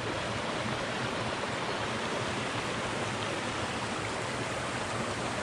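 A shallow rocky creek rushing over stones and small cascades: a steady wash of running water.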